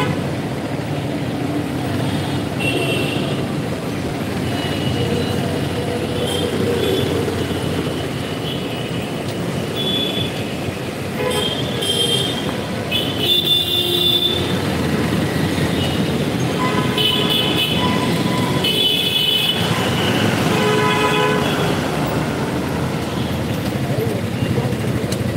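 Busy road traffic: a steady low rumble of engines, with vehicle horns tooting again and again, most often in the middle of the stretch.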